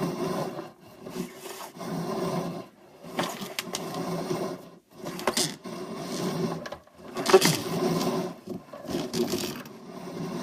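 Sewer inspection camera's push cable rubbing and scraping inside the pipe in irregular bursts, with a few sharp clicks and the loudest scrape about seven seconds in.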